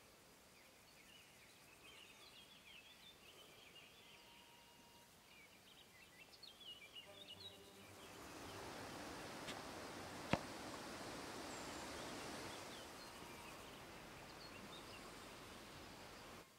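Faint outdoor ambience: small birds twittering quietly for the first several seconds, then a swell of rushing noise lasting about five seconds, with a single sharp click near its middle.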